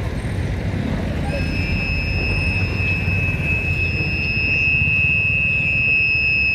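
Horn of an approaching Japanese-built electric locomotive, E 1262, sounding one long, steady, high blast that begins about a second in, over a steady low rumble.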